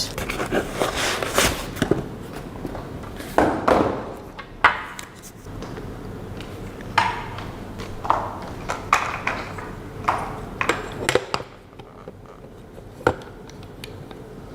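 Hardware from the thermal-screening device's box being handled and set down: irregular clicks, taps and light metallic clinks with some rustling. A sharper click comes near the end.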